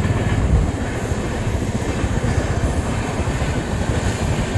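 Passenger train passing close by: a steady, heavy noise of its coaches' wheels running on the rails.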